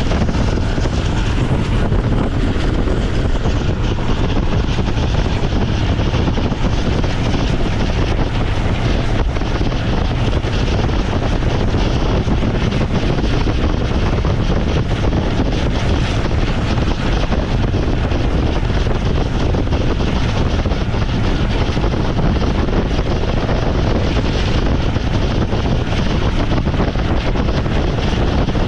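Tezgam Express passenger train running at high speed, heard from on board: a steady, loud rumble of wheels on rail mixed with rushing wind.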